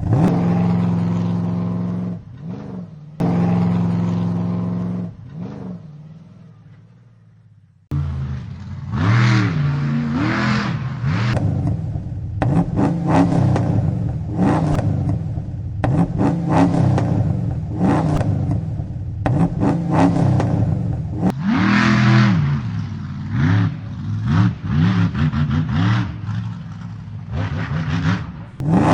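Monster truck engine running. First it is held at a steady high rev with two short dips and then fades away; after a sudden cut about eight seconds in, a second recording has the engine revving up and down again and again.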